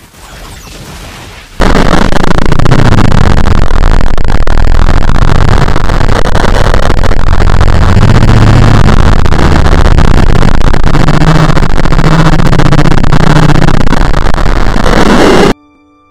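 Clipped, blown-out noise at full loudness, like a distorted explosion blast. It starts abruptly about a second and a half in, holds steady for some fourteen seconds and cuts off suddenly near the end.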